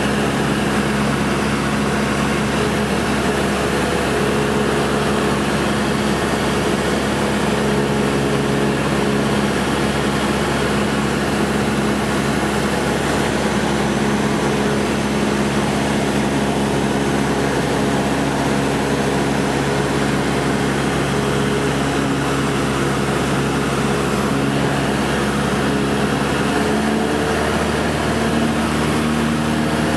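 Cabin sound of a Cessna 172 SkyHawk II in cruise: the four-cylinder piston engine and propeller drone steadily under a rush of wind noise. The tone shifts slightly near the end.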